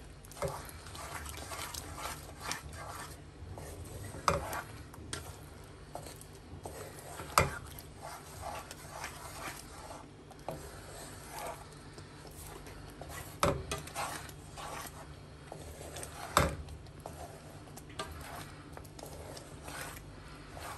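Wooden spatula stirring thick dal in a nonstick frying pan: soft scraping and rubbing against the pan, with a few sharper knocks on the pan, the loudest about seven seconds in.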